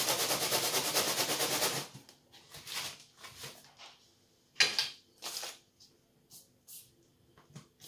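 Fast, even rattle of a fluted stainless-steel pastry ring being pressed and worked through puff pastry on the counter, stopping about two seconds in. About halfway through comes a sharp metal knock, with a second one just after, as the ring is lifted out and set down. A few light taps and knocks follow.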